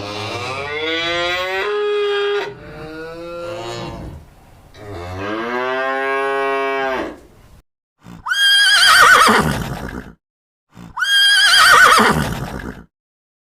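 A cow mooing in several long, low calls, then, about eight seconds in, a horse neighing twice in loud, high, quavering whinnies.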